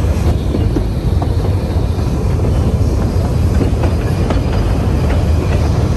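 Puffing Billy narrow-gauge steam train running, heard from an open-sided carriage: a steady low rumble of the carriages rolling on the rails.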